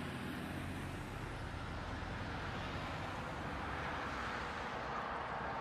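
Steady engine and tyre noise of a car driving on a city street, heard from inside the car through a dashboard camera's microphone.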